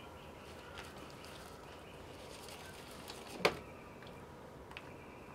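Quiet room tone with faint, broken high chirps and one sharp click about three and a half seconds in, then a couple of tiny ticks.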